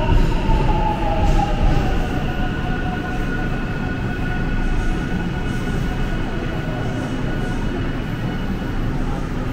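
Seoul subway train running at a station: a steady low rumble with an electric motor whine that falls in pitch over the first two seconds, then holds a steady high tone.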